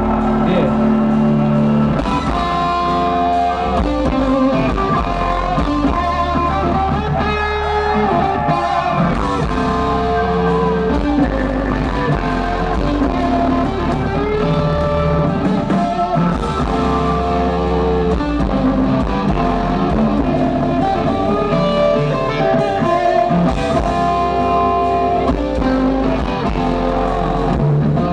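Live rock band playing, with electric guitar to the fore over bass and drums.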